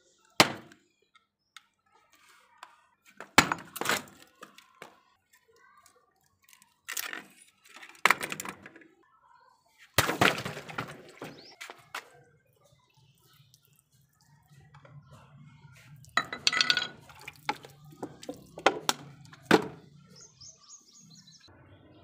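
An old turned wooden axe handle being smashed apart on concrete: sharp cracking and splintering blows, several spread through the first half, then more knocks over a low hum a few seconds before the end.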